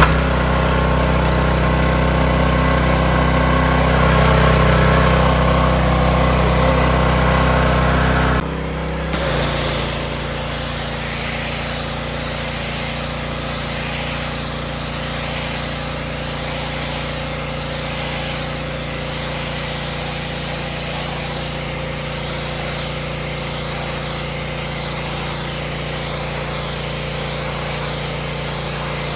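A 212cc OHV single-cylinder gas pressure-washer engine running steadily just after starting. About eight seconds in the sound changes abruptly to a lower, steady mix of the engine and a high water-spray hiss that wavers slowly.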